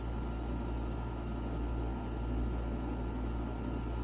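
Steady low hum with an even hiss: the background noise of the room, with no separate sounds in it.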